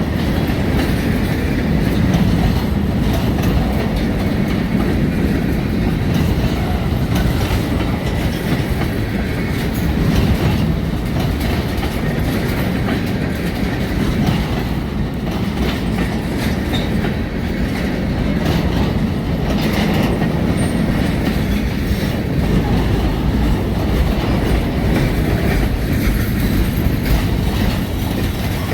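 Freight train moving along the track: a steady rumble of wheels on rail with clickety-clack over the rail joints.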